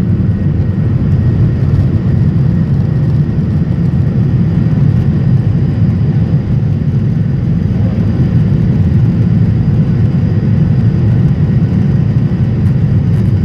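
Jet airliner's engines at takeoff thrust, heard from inside the cabin: a loud, steady low roar as the plane accelerates down the runway and lifts off.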